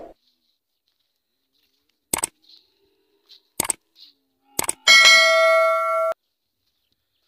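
Metal neck bell on a camel clanking three times as the camel browses, then ringing out for about a second before stopping abruptly.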